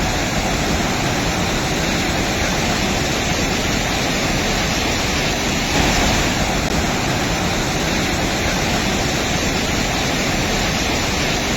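Floodwater rushing steadily, a loud even rush of fast-flowing water that grows briefly louder about halfway through.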